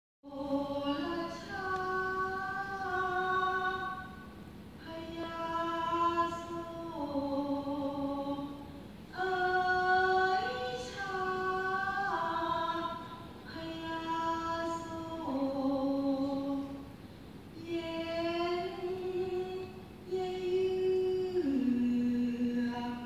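Thai folk singers singing together in slow phrases, holding long notes that step up and down in pitch, with short breaths between phrases.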